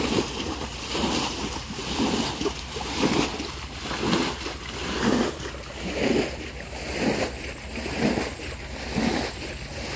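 Shallow muddy canal water sloshing and splashing as several people scoop and grope through it by hand, in a rough rhythm of about one surge a second.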